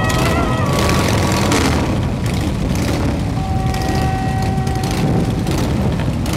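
Many Harley-Davidson V-twin motorcycles running together at low speed, a loud, continuous, dense rumble.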